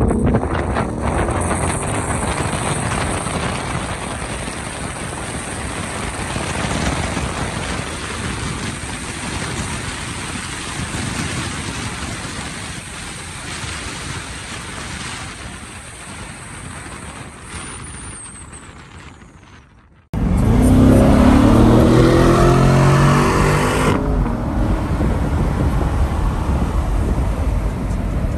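A 2020 Corvette C8 driving along a road: mostly tyre and wind noise with its V8 underneath, fading out over about twenty seconds. Then, suddenly much louder, cars at highway speed with an engine accelerating hard, its pitch climbing for about four seconds before holding steady.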